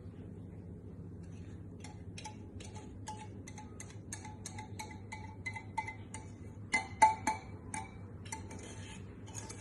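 A utensil tapping and scraping against a ringing mixing bowl while chocolate fondant batter is poured from it into the baking pan. It is a quick run of clinks, about three a second, starting about two seconds in, with the loudest strikes around seven seconds.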